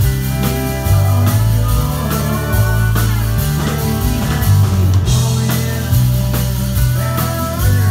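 Live band playing amplified rock music: electric guitars and bass over a drum kit, with a steady beat.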